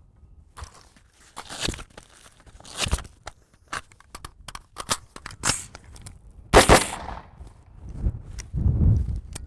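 AR-15-style carbine being reloaded by hand: a string of sharp metallic clicks and clacks as magazines are pulled from nylon pouches, swapped and seated, with scraping of the nylon pouches and gear. The loudest clack comes about two-thirds of the way through, and wind buffets the microphone near the end.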